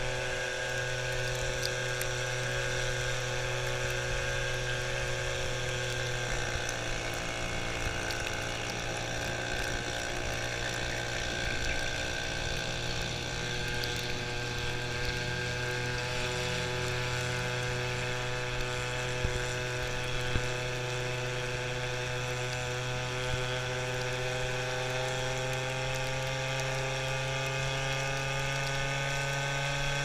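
Goped scooter's small motor running steadily under way, its pitch dipping about six seconds in, then climbing slowly toward the end.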